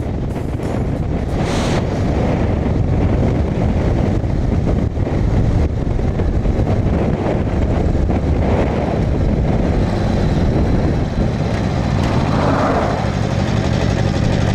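1985 Harley-Davidson Sportster 1000 Ironhead's air-cooled V-twin running steadily while the bike cruises on the road.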